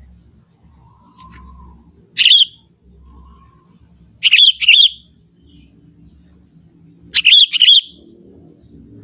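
Young sooty-headed bulbul calling: three loud, short phrases of bright chirping notes about two to three seconds apart. The first is a single note, and the later two are two and three quick notes.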